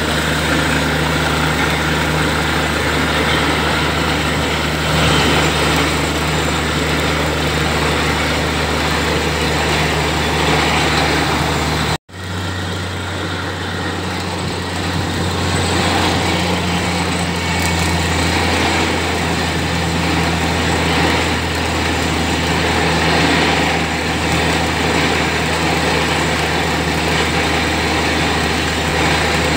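Truck-mounted borewell drilling rig running steadily during drilling: a loud, continuous engine drone with a steady hiss over it. It breaks off for an instant about twelve seconds in, then carries on.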